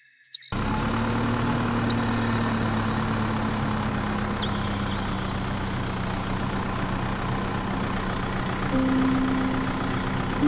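Tractor engine running steadily at idle, starting abruptly about half a second in after a couple of clicks. A few short high chirps sound over it, and near the end a simple tune of rising notes comes in.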